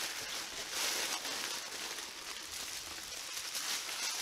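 Bubble-wrap packing crinkling and rustling continuously as a wrapped handbag is pulled out of a box.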